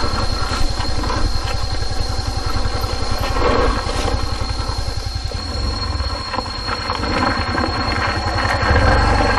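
Yamaha Filano 125cc scooter's single-cylinder engine running under load as it climbs a rough, slippery dirt track, with the throttle opening up now and then.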